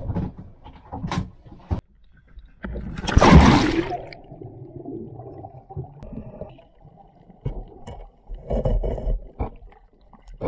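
A few knocks, then a loud splash about three seconds in as the camera goes into the sea. After it comes muffled underwater bubbling and water rushing past the camera, surging louder near the end with a freediver's fin strokes.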